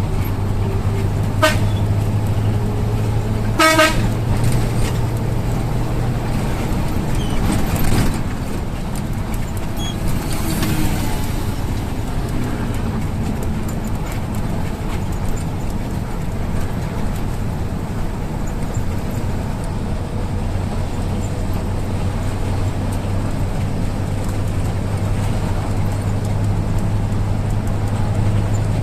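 Mercedes-Benz intercity bus engine running with a steady low hum. A horn gives two short toots, about a second and a half and four seconds in.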